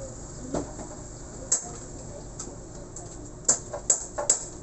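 Sharp metallic clicks and taps, one every second or so and then several in quick succession near the end, as a lathe's cutting tool is set into the bearing bore of a motorcycle wheel hub, over a low steady hum.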